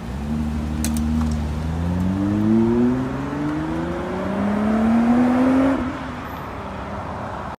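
Nissan GT-R (R35)'s twin-turbo V6 accelerating hard: the engine note climbs, drops at an upshift about three seconds in, climbs again through the next gear, then falls away and fades as the car pulls off into the distance.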